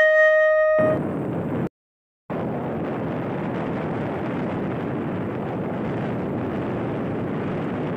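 Steady wind and road noise from a vehicle travelling along a mountain highway, an even rushing rumble with no engine note or tones. It is broken by about half a second of dead silence roughly two seconds in.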